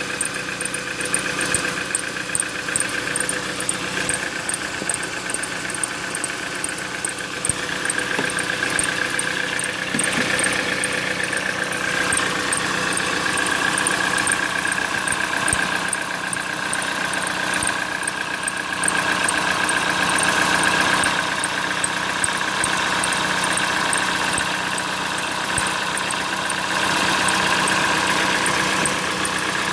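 Citroën C4 engine idling with an unexplained high, steady whistle over the engine note, wavering slightly in pitch. A fast, faint high ticking runs alongside, about four times a second.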